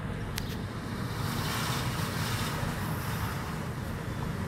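Car driving slowly along a street, heard from inside the cabin: a steady low engine and road rumble with tyre hiss that grows louder for a few seconds, and a single click near the start.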